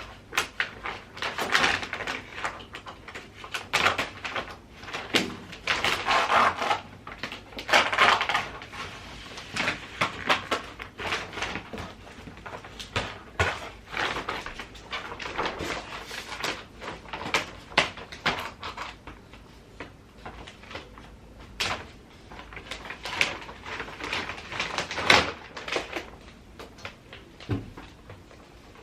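Irregular clicks, knocks and rustling of objects being handled and moved about, some louder knocks standing out among them.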